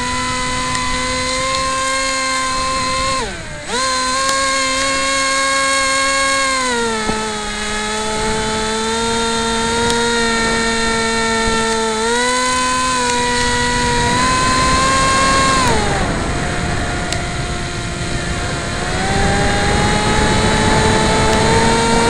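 Electric motor and propeller of a Dynam Snow Bird radio-controlled model plane whining in flight, heard from on board with wind rushing past. The pitch steps down and back up as the throttle changes. It dips sharply about three seconds in, falls again around sixteen seconds, then climbs back near the end.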